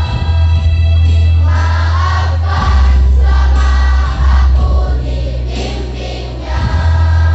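A children's choir of boys and girls singing together over loud accompanying music, whose heavy bass notes are held and change every second or two.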